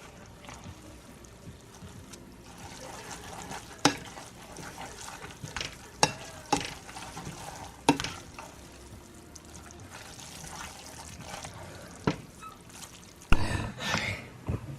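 Kitchen sounds: scattered sharp clinks and knocks of utensils and dishes over a low hiss, with a louder clatter near the end.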